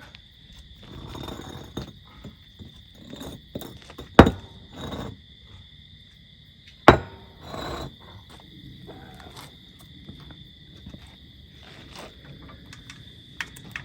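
Metal knocks while a stuck wheel bearing is worked loose from its backing plate: two loud, sharp strikes about three seconds apart, with lighter knocks and clatter of tools and parts between.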